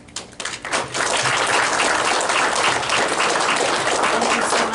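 Audience applauding: a few separate claps swell into steady applause about a second in.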